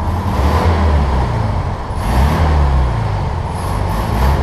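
1971 Volkswagen Beetle's air-cooled flat-four engine running as the car is driven, its speed rising and falling twice.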